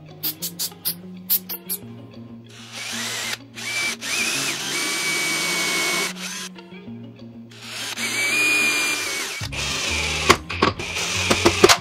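Cordless drill boring into the end of a pine dowel handle through the end board, in two runs with a steady high whine, then a cordless impact driver driving a screw into it near the end. A few sharp clicks come in the first two seconds.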